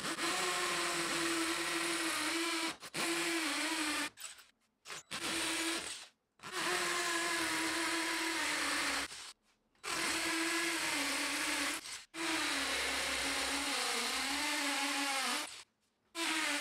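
DeWalt cordless drill with a masonry bit drilling holes into a concrete footing for anchor bolts. It runs steadily in several stretches with brief stops, its pitch sagging slightly under load at times.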